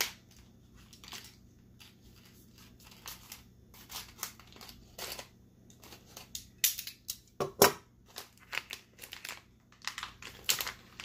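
A small plastic blind-bag packet being cut and torn open by hand, with irregular crinkles and snips throughout and one louder sharp click about seven and a half seconds in.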